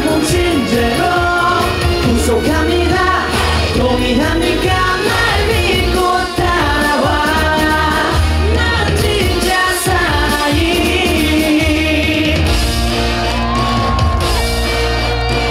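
Loud dance-pop music with singing over a steady bass beat, performed live through a sound system, with some shouts from the crowd.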